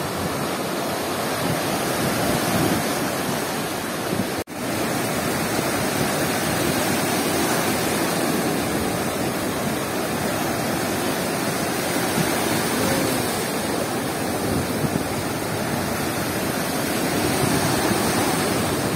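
Stormy Black Sea surf breaking and washing up the shore in a steady rush, cut off for an instant about four and a half seconds in.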